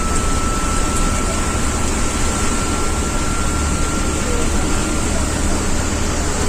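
Ashok Leyland Viking bus's diesel engine running under way, a deep steady drone, mixed with a constant rush of rain and wet-road noise. A thin high whine slowly rises in pitch over it.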